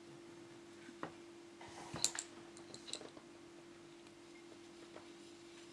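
Faint clicks and taps of a felt-tip marker and a pencil pot being handled on a table, the loudest cluster about two seconds in, over a low steady hum.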